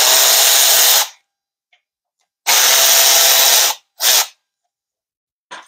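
Power tool run in three short bursts, two of about a second and a brief third, backing out bolts on a TH400 automatic transmission during teardown.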